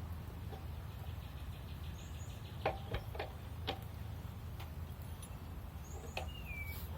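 Four sharp clicks in quick succession a little under halfway through, over a steady low rumble, with birds chirping several times and one short falling whistle near the end.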